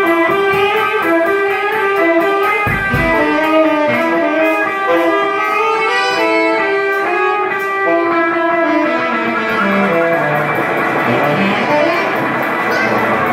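Live band of electric guitar, drum kit and saxophone playing an instrumental: a melodic line of held notes over the drums, with a phrase sliding down in pitch about two-thirds of the way through.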